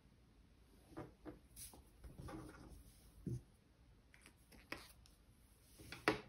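Ink drawing pen being handled, capped and set down: a handful of soft clicks and knocks with a brief rustle of hands and paper, and a sharper click near the end.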